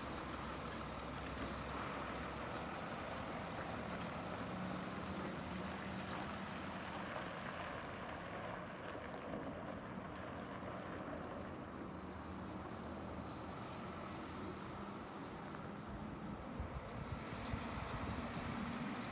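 Heavy machinery running steadily, an engine-like hum under a continuous mechanical noise, with a few light knocks near the end.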